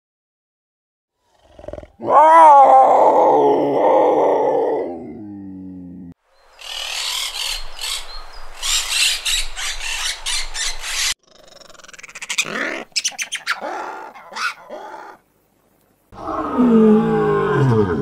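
A black-backed jackal's loud wavering call that falls in pitch and fades over about four seconds. Then several seconds of rough hissing and rasping, broken by short gaps, and near the end a lion's roar falling in pitch.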